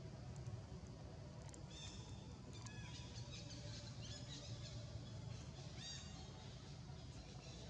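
Short high-pitched chirping calls, a handful clustered between about two and six seconds in, some bending down in pitch, over a steady low hum.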